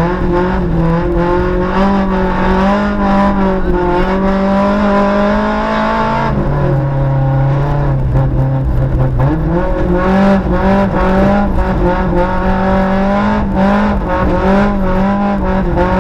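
On-board sound of a VW Gol rally car's engine pulling hard on a muddy dirt stage. The engine note drops sharply about six seconds in, as at a gear change, then climbs again about three seconds later. Gravel and mud rattle against the car's underside throughout.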